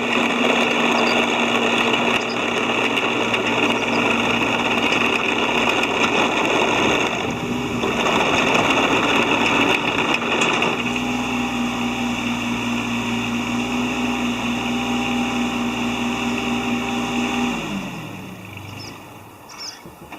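Yanmar ViO20-3 mini excavator's diesel engine running steadily at high revs, then switched off near the end, its pitch falling as it winds down to a stop.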